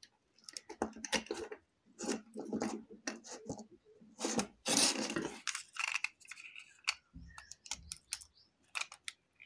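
A small screwdriver working the brass terminal screws of a plastic switch board while copper wires are handled: irregular short clicks, scrapes and rattles, with a longer, louder scrape about halfway through.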